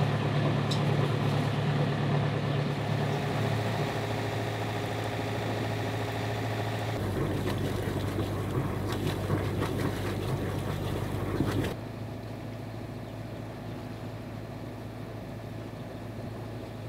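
A sailboat's engine running steadily as the boat motors along. Water rushes and splashes past the stern for a few seconds in the middle. A little over halfway through, the sound drops suddenly to a quieter steady hum.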